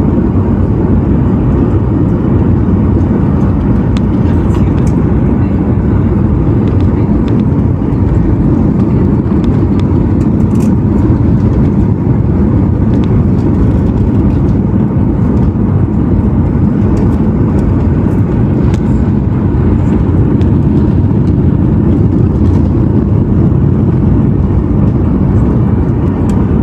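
Cabin noise of a Boeing 737-800 in flight: a steady low drone of engines and airflow, with a few faint ticks.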